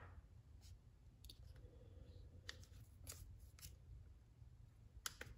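Near silence with a few faint, scattered clicks and taps as the impact driver's plastic and metal parts, its bare motor and gearbox assembly, are handled.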